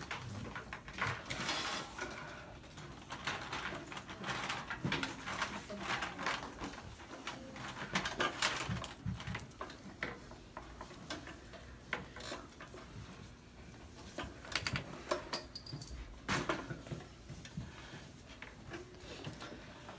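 Classroom room noise during desk work: scattered, irregular taps, knocks and rustles from students working at their desks.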